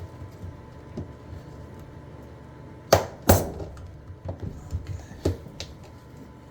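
Two sharp, hard knocks about three seconds in, the second ringing briefly, followed by several lighter clicks and knocks as tools and washer parts are handled.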